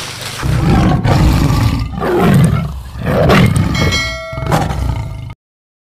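Tiger roar sound effect, several deep roars one after another, with a bright bell-like ding about four seconds in; it cuts off suddenly near the end.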